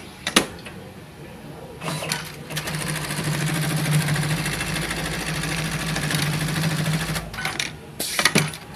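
Automatic pocket-setting sewing machine stitching a denim jeans back pocket through a template, running steadily for about five seconds. A couple of sharp clicks come before it starts, and it stops near the end with a few more clicks.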